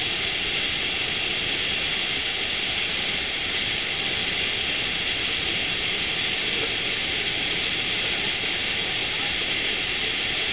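Steady rushing of the water sheet pumped over a FlowRider wave machine: an even, unbroken hiss with no changes.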